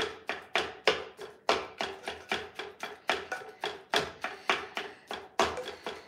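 A plastic mashing tool knocking repeatedly against a baking dish as it chops and mashes potatoes, about three knocks a second, each with a short ring. The potatoes are not cooked enough and break up slowly.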